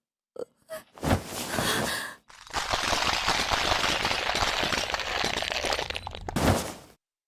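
Dramatic sound effects: a thump, then several seconds of dense crackling noise that ends in a heavy thud and cuts off suddenly.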